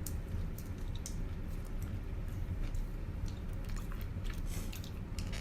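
A person biting into and chewing a crispy fried chicken sandwich close to the microphone, with crunching and lip smacking heard as a run of small irregular clicks.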